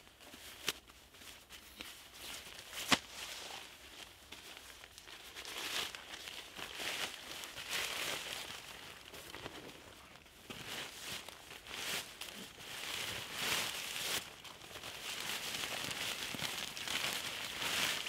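Crinkling and rustling of a tarp groundsheet being unpacked and spread out over dry leaves, with a sharp click about three seconds in. The rustling grows busier in the second half.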